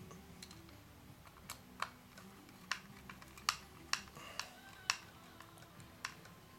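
Small screwdriver and screws clicking and tapping against the plastic casing of a Bose SoundDock Portable as screws are set in and turned: a string of light, irregular clicks, about nine in all.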